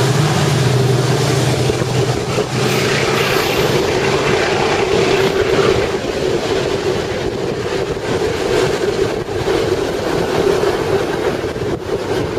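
Loaded open freight wagons rolling past on the rails: a steady rolling noise with a hum, easing off slightly near the end as the last wagons go by.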